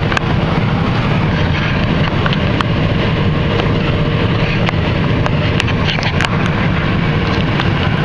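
Claas Lexion 595 combine harvesting corn, heard from inside the cab: the engine and threshing machinery run with a loud, steady drone, with scattered short clicks over it.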